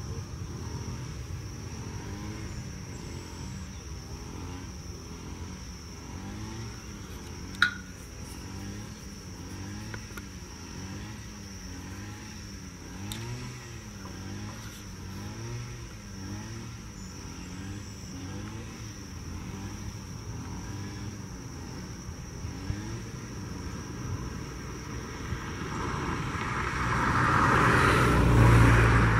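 Airbus A320's jet engines running at low power as the airliner taxis, with a steady whine; the engine noise swells sharply near the end as the aircraft passes close by.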